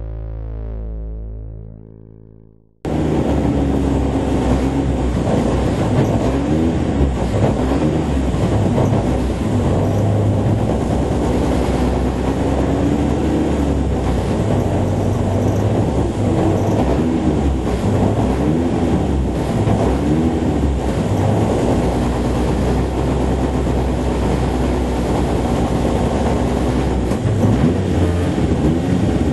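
Racing car engines on the track, their notes rising and falling over a steady loud rumble. A short synth jingle fades out before it, and the engine noise starts suddenly about three seconds in.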